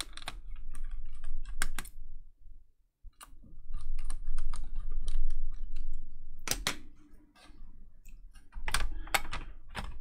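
Sharp plastic clicks and knocks from a laptop's plastic bottom cover being handled and pressed onto the chassis. The clicks come irregularly, with a brief lull about a third of the way in and the loudest snaps near the end.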